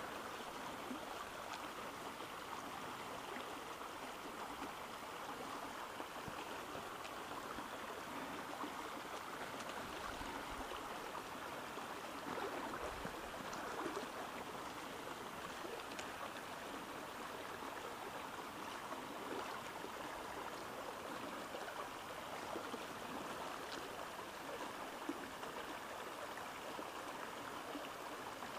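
Shallow river current running steadily over a riffle, an even babbling rush of water.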